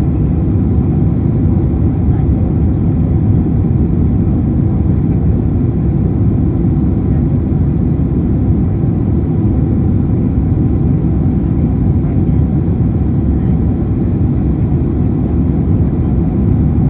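Boeing 767 cabin noise during takeoff: a loud, steady, low rumble of the jet engines and airflow.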